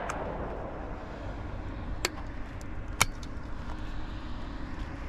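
Two short, sharp cracks about a second apart, around the middle, over a steady low outdoor rumble.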